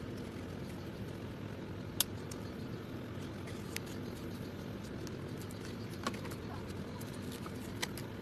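A few small, sharp clicks of repair tools against a laptop screen assembly being taken apart, four in all, the loudest about two seconds in, over a steady low hum.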